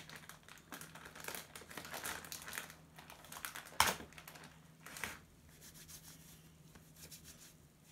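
Crinkling and rustling as slime-covered hands are wiped clean. There is a sharp tap about four seconds in and a smaller one about a second later.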